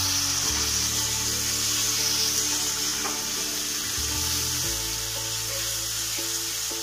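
Chopped tomatoes sizzling as they fry in hot oil in a pan, with a steady hiss. Background music with long held notes plays under it, changing chord a couple of times.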